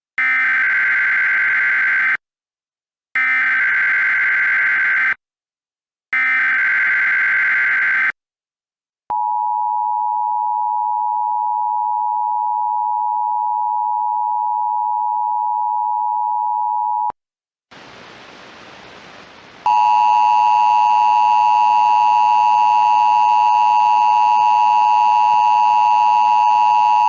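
Emergency Alert System SAME header: three 2-second bursts of screeching digital data with short gaps. Then the steady two-tone EAS attention signal for about eight seconds. After a short hiss of static, a second, buzzier two-tone attention signal sounds over the static.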